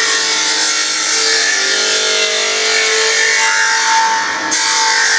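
SGA-2550AH surface grinder's abrasive wheel grinding a metal workpiece under automatic table feed: a steady loud hiss over the wheel motor's whine. About four seconds in the grinding hiss drops away briefly as the wheel runs off the work, then cuts back in sharply.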